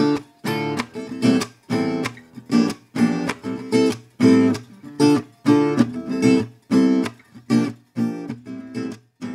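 Intro music: an acoustic guitar strumming chords in a steady rhythm, a short strum about every half second.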